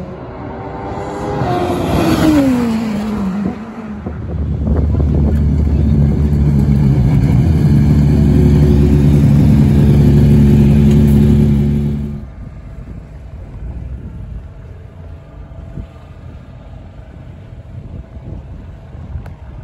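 A racing car's engine note sliding down in pitch as it goes by, then a Radical sports-racer's V8 running loudly at a steady pitch. About twelve seconds in it cuts to a much quieter low engine rumble.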